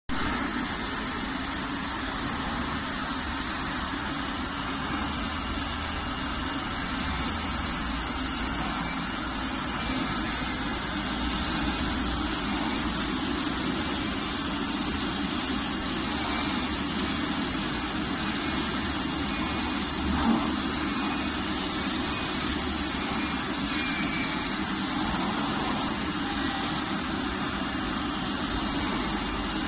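Realtop auto-loading digital flatbed cutting machine running, its cutting head working across quilted fabric on the conveyor bed, giving a steady, even machine noise.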